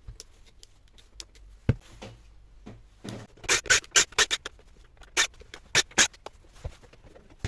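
A run of sharp clicks and short scrapes from hard objects being handled or rubbed, with the loudest and densest cluster about halfway through.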